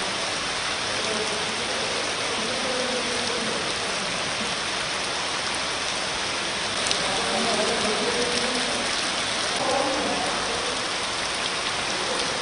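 Heavy rain falling steadily: a dense, even hiss of rain on wet ground, standing water and leaves.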